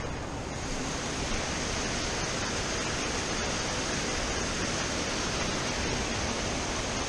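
Steady rush of water pouring over a low spillway at a dam outlet, an even, unbroken noise.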